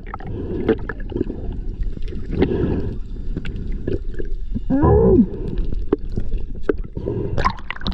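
Muffled underwater sound picked up by a camera in its housing: a dull, low water rush with scattered clicks. About five seconds in comes a brief pitched tone that rises and then falls.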